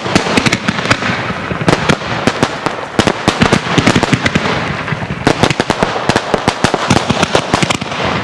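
Professional fireworks display: comet shots and candles firing in rapid succession, a dense stream of sharp pops and bangs over a steady hiss.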